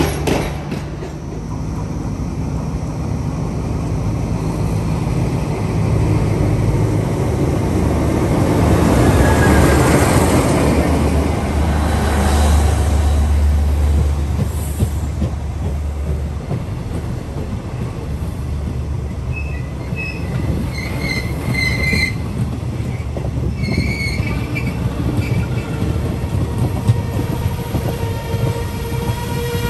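KTMB passenger train coaches rolling past close by: a continuous rumble of wheels on rail with a low hum, and short high-pitched wheel squeals about two-thirds of the way through. A train horn starts to sound just before the end.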